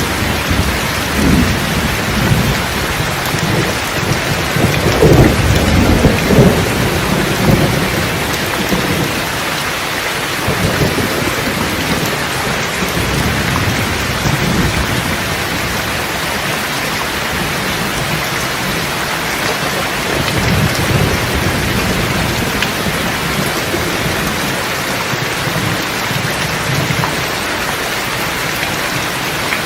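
Steady heavy rain with rolling thunder, the rumble swelling strongest about five to seven seconds in and coming back more weakly later on.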